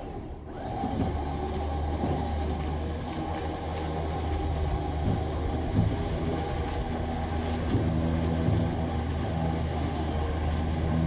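Tow truck winch running with a steady low drone, starting about a second in, as a stripped car body is hauled up the steel loading ramps. A few short knocks and creaks come from the body on the ramps.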